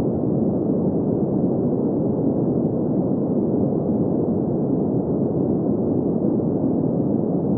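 Green noise: a steady, even rushing noise with its weight in the low middle range and no high treble.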